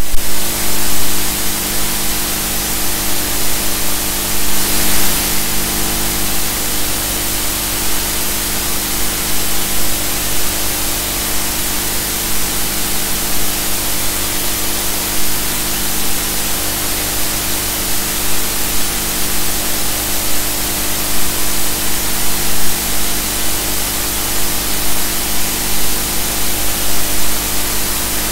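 Loud, even hiss over a low machine hum made of several steady tones, unchanging throughout: the constant machinery and electrical noise on the audio track of a subsea ROV survey recording.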